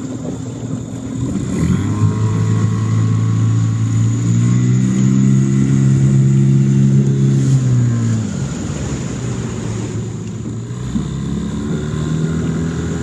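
Mercury outboard motor on a small inflatable boat, throttled up about a second and a half in and running faster for several seconds, then easing off around eight seconds and speeding up again near the end.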